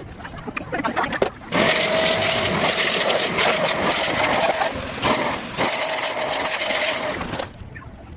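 A small electric motor running steadily with a hum and a hiss, starting a second and a half in, cutting out briefly near the middle, then running again and stopping shortly before the end.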